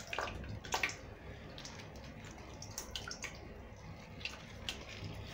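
Thick yogurt poured in a stream onto raw beef chunks in a pot: faint wet plops and drips, scattered as short separate ticks.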